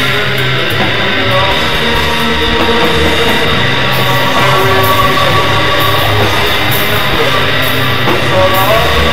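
Raw doom/black metal song: heavily distorted electric guitars and drums, loud and unbroken, in a muffled recording with little top end.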